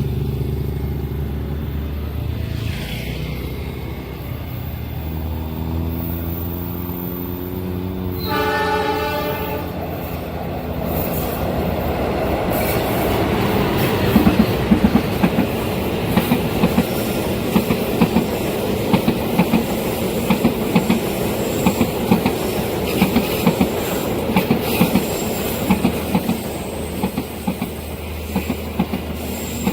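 Train approaching a level crossing: low engine rumble, a long multi-tone horn blast about eight seconds in, then the cars passing with rhythmic clacks of wheels over rail joints.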